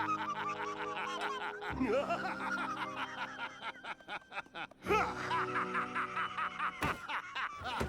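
An animated character's cackling laughter, in several long runs of quick laughs, over background music.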